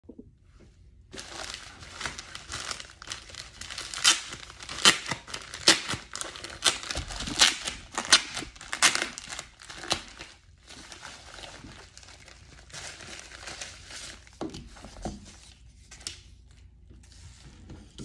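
A white plastic mailer envelope being crinkled and torn open by hand. The loudest sharp crinkles and rips come between about four and ten seconds in, followed by softer rustling of the plastic.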